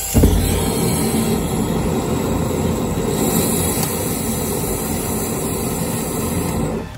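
Homemade jet engine built from scrap sheet-metal ducting lighting with a sudden whoomp, then running with a steady, low rushing flame noise that cuts off abruptly near the end.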